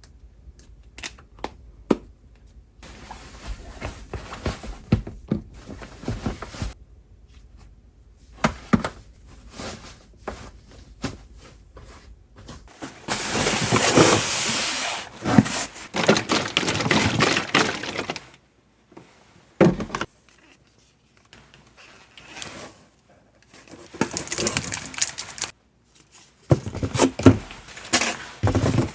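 Kitchen food-prep handling sounds: scattered knocks and clatter of utensils and containers, with a few longer noisy stretches, the loudest about halfway through.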